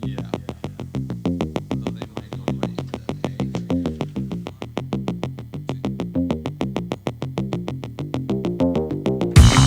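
Electronic background music: a synthesizer line over a fast, steady ticking pulse, building until a louder full beat comes in near the end.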